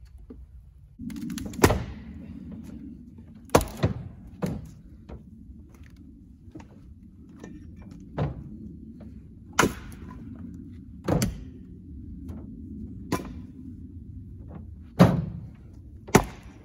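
Splitting maul striking firewood rounds and split wood being stacked into a pickup bed: about ten sharp wooden knocks at uneven intervals, over a faint steady low hum.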